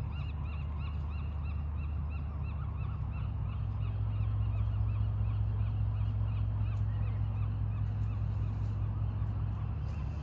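A steady low motor hum that grows slightly louder about four seconds in, with a bird giving quick high chirping calls, about four a second, over it that fade away after the first few seconds.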